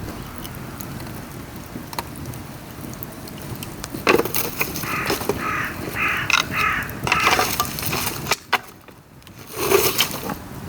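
Dry bamboo burning in a pail-can fire in the rain: steady crackling with scattered sharp pops. From about four seconds in come louder cracks, and in the middle a run of several short, harsh pitched cries.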